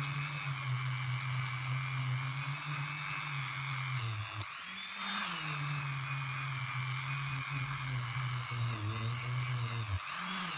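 Dremel rotary tool spinning a hook-and-loop sanding pad with a fine-grit disc, sanding with a steady whine. The pitch rises briefly twice, about four and a half seconds in and again near the end.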